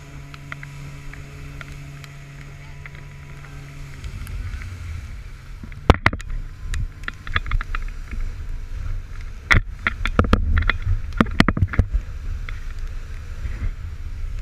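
Outdoor rumble with wind buffeting the microphone. A steady low hum stops about four seconds in, and from about six seconds a series of sharp clicks and knocks follows.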